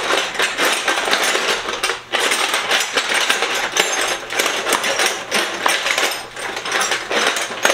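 A hand rummaging through a metal toolbox full of loose wrenches: steel tools clattering and clinking against each other and the box without letup, with a short lull about two seconds in.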